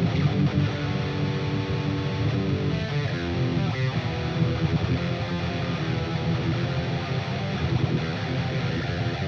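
Jackson Dinky DX10D electric guitar played solo, a continuous riff with a dense, distorted tone.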